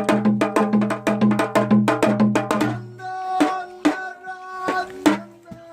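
Music played on percussion: quick, even strikes over a steady low drone, which drops out about three seconds in, leaving slower single strikes with ringing notes.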